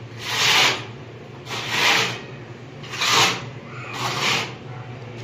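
Metal putty knife scraping across a rough cement wall as white putty is spread on it: four rasping strokes, a little over a second apart.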